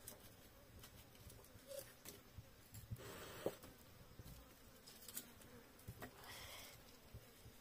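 Faint, sparse crackling and clicks from a small wood cooking fire, with brief rustling scrapes as the firewood is shifted, about three seconds in and again about six seconds in.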